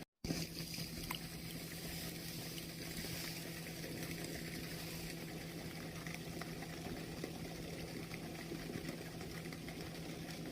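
Steady rush of water flowing through a sluice gate, with a low steady hum underneath.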